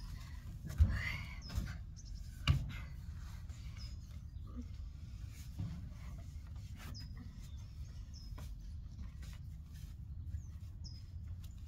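Outdoor ambience of birds chirping in short, scattered calls over a low steady rumble, with a few dull thumps, the loudest about one and two and a half seconds in.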